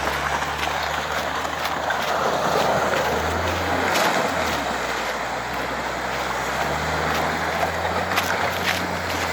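A vehicle engine running while driving, its pitch shifting up and down a few times, over a steady rushing noise.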